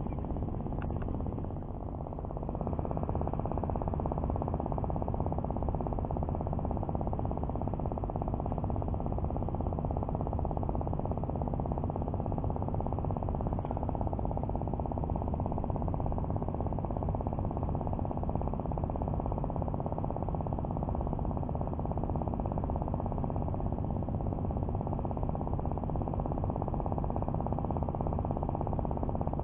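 Steady low rumble of outdoor background noise, dipping briefly about two seconds in.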